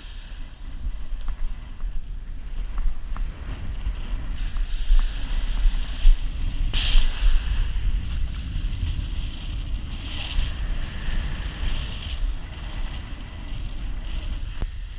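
Wind buffeting the microphone in a gusting low rumble, over a steady hiss of surf that swells briefly about seven and ten seconds in.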